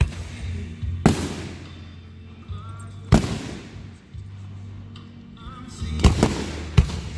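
Aerial firework shells bursting: about six sharp booms, two of them close together near the end, each with a fading crackle and echo, over music with a steady bass.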